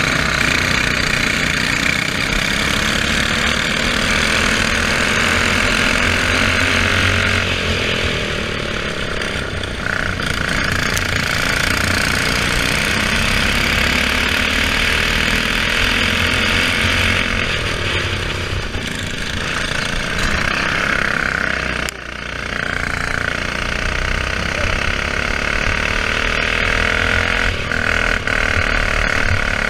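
Single-cylinder four-stroke racing kart engine heard onboard under hard throttle, its pitch climbing along the straights and falling away as it lifts for corners. Other karts' engines run close by.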